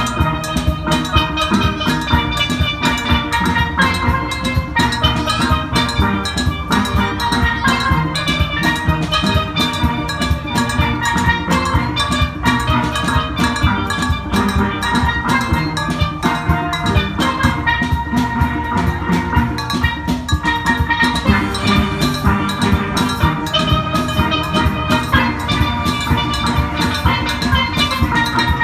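Steel band playing: steel pans ringing out a melody and chords over drums keeping a steady beat.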